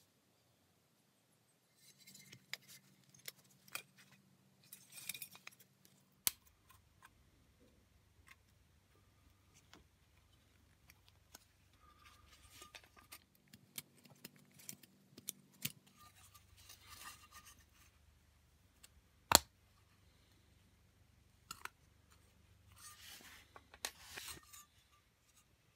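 Small steel parts of a paper hole punch being handled with gloved hands: scattered light metallic clinks, taps and rustles, with one sharp click about three quarters of the way through.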